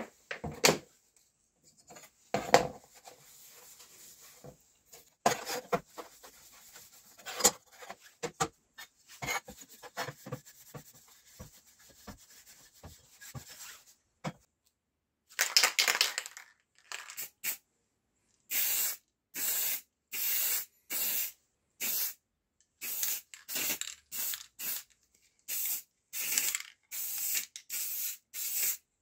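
Aerosol spray paint can hissing in a string of short bursts, roughly one a second, as grey paint is sprayed onto a speaker horn; the first burst, a longer one, comes about halfway in. Before that, scattered rubbing and handling noises with a few sharp knocks on the workbench.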